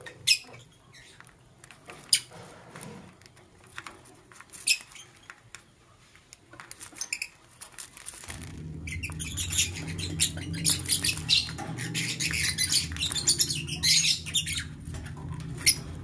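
Caged lovebirds calling: a few sharp, separate high chirps in the first half, then from about halfway a dense, continuous high chattering. A low steady hum comes in at the same moment as the chattering.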